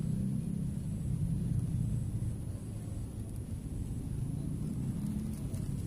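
Strong wind buffeting the microphone: a steady, ragged low rumble.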